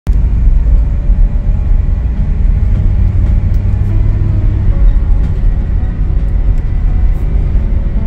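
A vehicle driving along a road: a steady, loud low rumble of engine and tyres.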